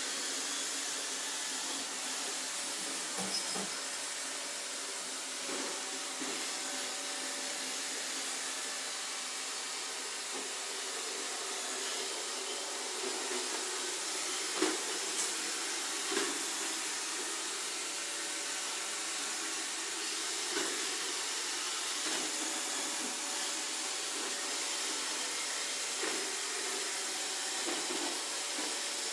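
iRobot Roomba robot vacuum running with a steady whirring hiss of its motors and brushes, broken by a few brief knocks.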